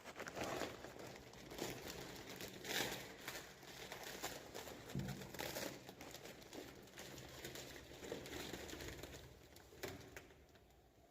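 Packing material being handled and unwrapped, a run of irregular crinkling and rustling that dies away near the end.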